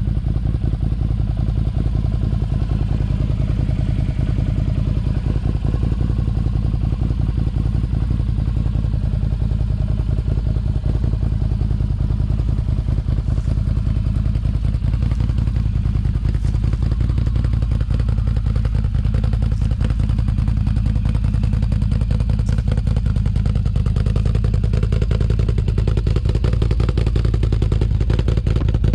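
Can-Am Outlander XMR 1000's V-twin engine running steadily through an aftermarket Yoshimura exhaust, a fast even pulsing with slight slow rises and falls in pitch.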